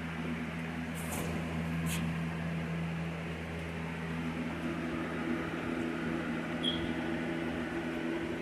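Steady mechanical hum, like a running fan, with two short sharp clicks about one and two seconds in.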